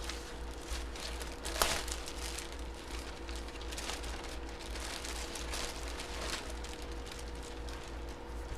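Plastic packaging crinkling and rustling as it is handled and opened, with one sharper crackle about a second and a half in. A steady low hum runs underneath.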